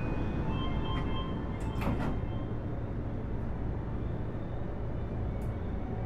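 Inside a Keio Series 5000 train car standing with its equipment humming steadily. A few short electronic tones sound in the first second or so, and a sharp thud comes about two seconds in, fitting the sliding doors closing.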